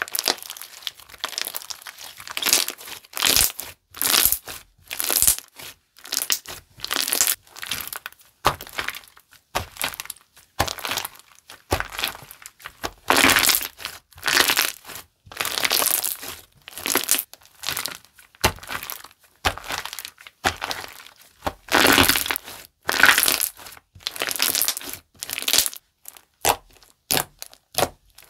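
Glue-based 'bubble soap ball' slime being squeezed, stretched and pressed by hand, giving repeated short squishing and popping sounds about once or twice a second with brief pauses between.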